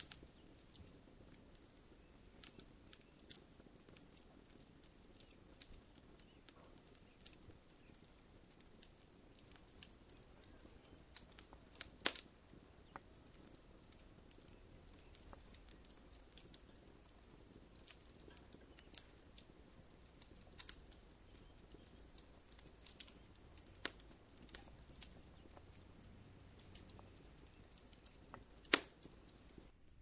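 Kitchen knife cutting tomatoes on a wooden cutting board: scattered light clicks and taps, with two sharper knocks, one about twelve seconds in and one near the end.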